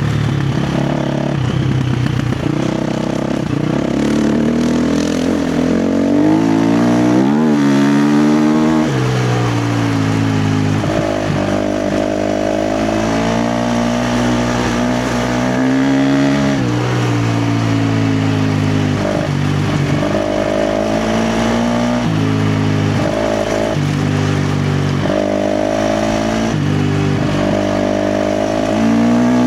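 KTM 350 XC-F's single-cylinder four-stroke engine being ridden hard, its revs climbing and dropping again and again: a quick burst of revving about a quarter of the way in, a long pull that falls away sharply past the middle, then a run of shorter pulls.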